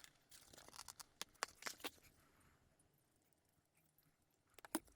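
Scissors snipping through leather: a run of short, faint snips in the first two seconds, then quiet, then two more snips near the end.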